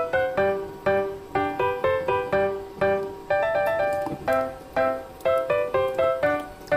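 Background piano music: single notes and small chords struck at an even pace, each ringing briefly and fading.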